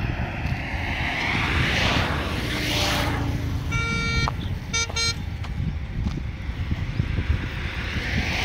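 Road traffic passing with tyre and engine noise, swelling as vehicles go by. A vehicle horn sounds about four seconds in: one honk of about half a second, then two short toots.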